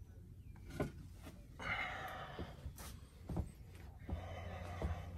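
Handling and movement noise inside a small boat cabin: a few light knocks and a soft rush of breath-like noise over a low steady hum.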